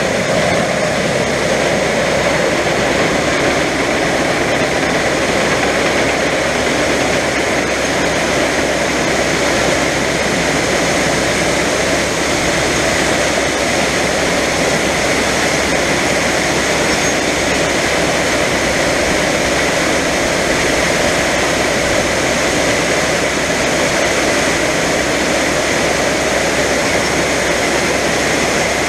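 Diesel engine of heavy John Deere harvest machinery running steadily under load, a constant loud drone with no change in speed.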